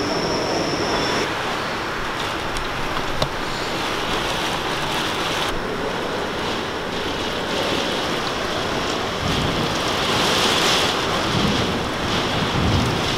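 Heavy storm rain driven by strong wind: a dense, steady rush of rain with gusts swelling about ten seconds in and again near the end.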